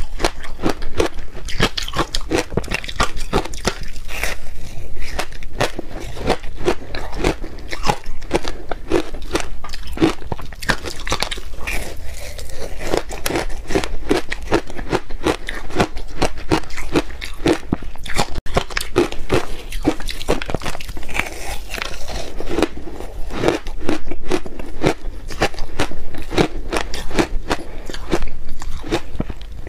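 Close-miked biting and chewing of a frozen block of matcha-powdered ice topped with sprinkles: a dense, irregular run of loud crunches as chunks break off and are ground between the teeth.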